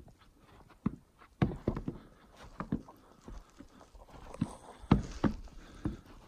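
Footsteps thudding on the snow-covered plank deck of a suspension footbridge, at an uneven walking pace.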